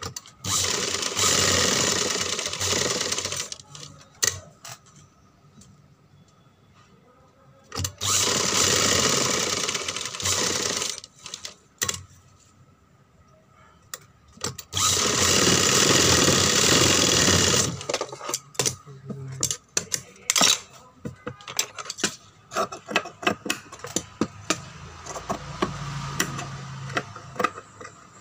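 Sewing machine stitching in three runs of about three seconds each, with pauses between, followed by scattered clicks and snips as the cloth is trimmed with scissors.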